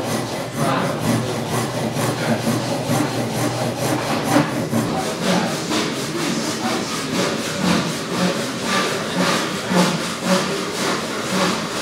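Japanese hand saw cutting through a wooden beam in a steady rhythm of strokes, roughly two a second.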